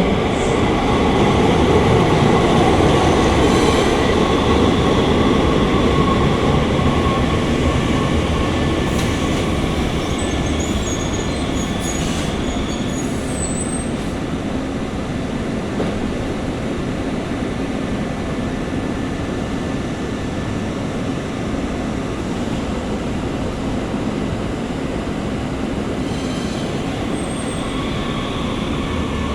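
Muni Metro light rail train running through the station, loudest over the first few seconds and then easing to a steady rumble. Brief high-pitched wheel squeals come a little before the middle and again near the end.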